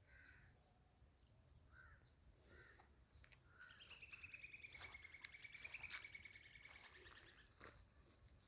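Faint bird calls: a few short calls, then a long trilling call that slides down in pitch and holds for about three and a half seconds, with scattered sharp clicks.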